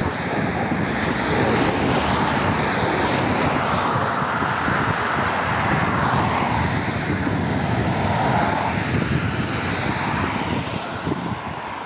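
Road traffic on a multi-lane highway: cars passing close by, a steady rush of tyre and engine noise that swells and eases as vehicles go past.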